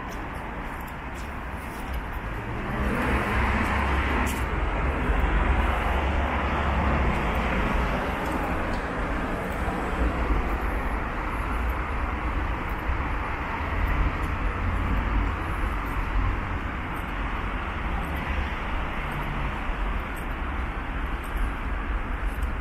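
Steady road traffic noise from cars and vans passing on the adjacent road, a continuous rumble and tyre hiss that swells about three seconds in and stays loud.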